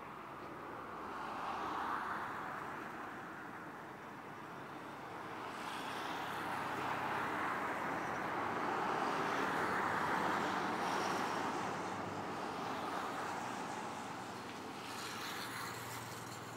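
Road traffic: passing vehicles' tyre and engine noise, swelling and fading twice, with the longer, louder pass peaking around the middle.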